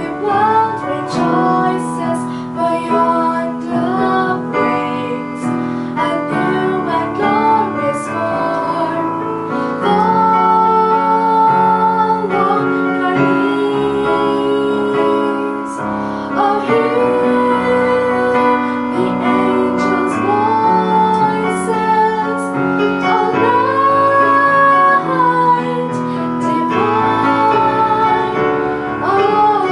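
A girl singing a song solo, accompanied by chords on a Yamaha electronic keyboard, with several long held notes.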